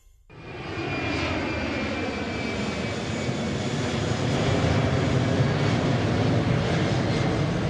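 Steady drone of an airplane in flight, fading in quickly at the start and holding level.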